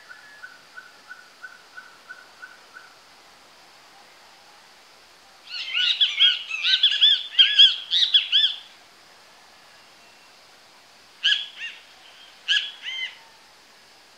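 Birdsong: a run of short, even notes at one pitch repeated about three times a second for the first few seconds, then a loud burst of rapid chirping song in the middle, and two short call phrases near the end. A faint steady high hum runs underneath.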